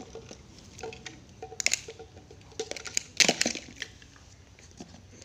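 Hard plastic toys clacking and knocking together as a baby handles them: a few clusters of sharp clicks, the loudest a little past three seconds in.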